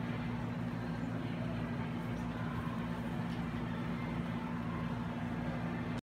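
Steady low mechanical hum with faint indistinct chatter beneath it.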